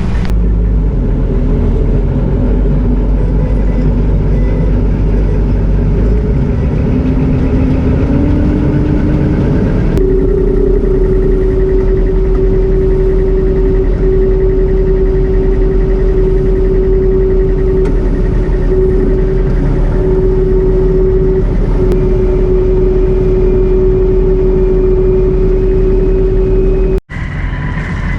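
Old combine running with its threshing machinery engaged: steady engine rumble, with a whine that rises in pitch as the machine spins up and then holds steady. The sound cuts off abruptly near the end.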